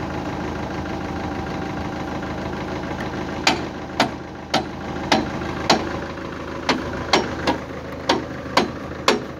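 Mitsubishi backhoe loader's diesel engine idling steadily. From about three and a half seconds in, about a dozen sharp metal clanks ring out, roughly two a second.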